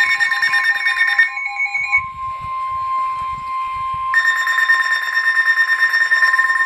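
NOAA Weather Radio warning alarm tone, a steady 1050 Hz tone, sounding ahead of a severe thunderstorm warning. A second, pulsing electronic beep sounds over it for the first two seconds, drops out, and comes back about four seconds in.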